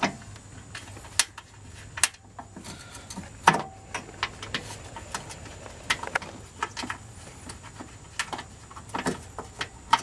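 Scattered metal clicks and clinks of a hood latch assembly being handled and seated against the radiator support, with one sharper knock about three and a half seconds in.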